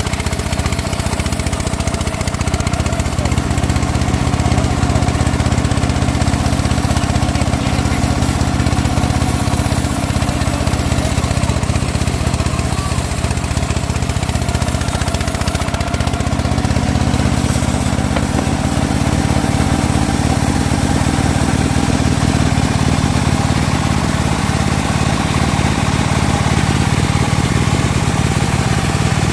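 Homemade bandsaw running steadily while sawing teak, a continuous low machine drone; the low part of the sound grows fuller a little past halfway through.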